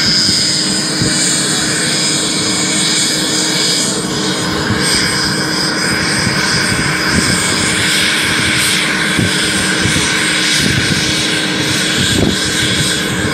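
Helicopter turbine engine running steadily on the ground: a constant rush with an even high whine.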